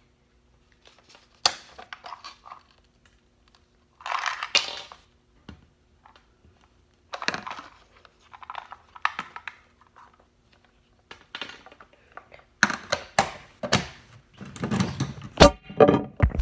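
Hard plastic toy-capsule pieces and plastic wrapping being handled: short irregular crinkles, crunches and clicks. Near the end they come thick and fast, with a few heavy thumps as the recording phone is knocked and covered.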